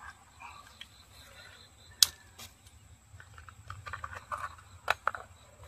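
Sharp metallic clicks and clinks of a socket wrench and extension being handled at a spark plug well, with a single loud knock about two seconds in and a cluster of smaller clicks and rustling later on.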